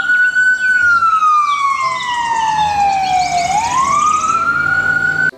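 Ambulance siren in a slow wail. The pitch climbs and holds, sinks slowly for nearly three seconds, then climbs again before cutting off suddenly.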